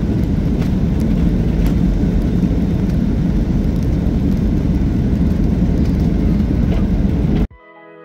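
Jet airliner's engines and runway rumble heard from inside the cabin during the takeoff roll: a loud, steady, low-heavy rush. It cuts off suddenly near the end.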